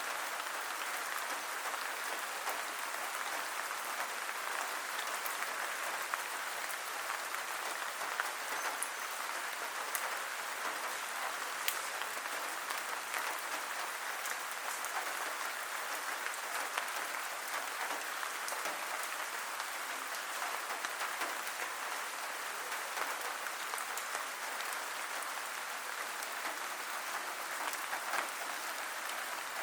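Steady rain falling, a dense even hiss with many small drop ticks and no let-up.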